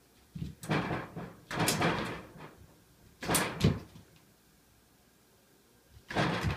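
A cat jumping and pawing at a wooden door with frosted glass panels, making the door knock and rattle in four short bursts.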